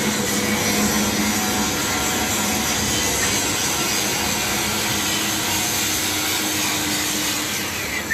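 Sheet-metal roll-forming machine running, with a steady rasping scrape as a metal sheet feeds through its rollers. The noise drops near the end.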